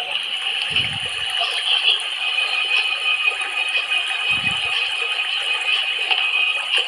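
Underwater ambience from kelp-forest footage: a steady hiss with fine crackling, and two short dull low thumps, one about a second in and one past the middle.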